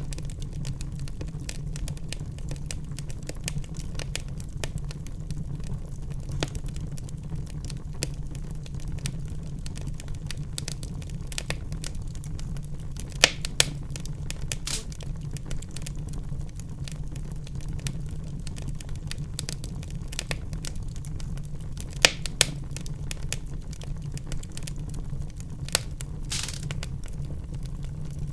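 Wood fire in a fireplace crackling with a dense run of small snaps over a low steady rumble. A few louder pops stand out in the middle and later on, and there is a brief hiss near the end.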